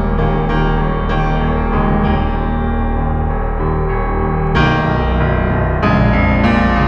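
Background piano music with held chords; new chords are struck about four and a half and six seconds in.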